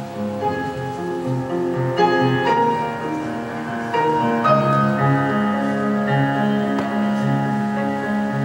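Piano playing, with sustained chords and new notes struck about two and four seconds in.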